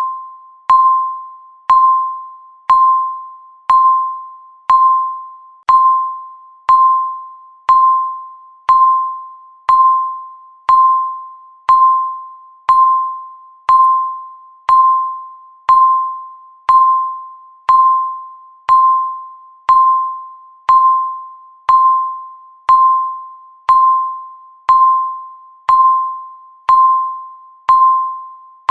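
Countdown timer sound effect: one electronic ding at the same pitch, once a second, each starting with a click and fading before the next.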